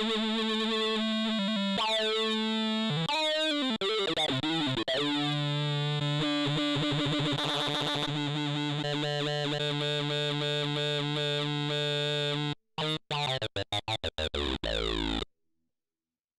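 Nord Wave 2 synthesizer playing a sustained chordal patch whose tone shifts and sweeps as it is tweaked. Near the end the sound chops rapidly on and off, then stops about a second before the end.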